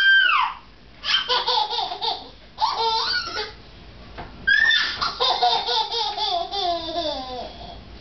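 Toddler giggling and laughing: a high squeal at the start, choppy bursts of giggles, then a longer run of laughter from about halfway that slides down in pitch.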